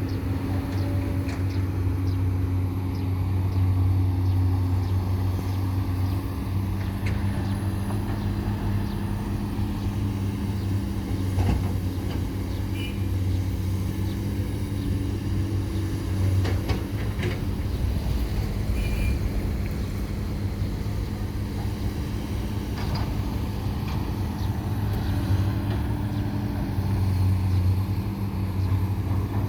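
Steady low engine drone from a radio-controlled dump truck or excavator, with scattered short clicks and knocks.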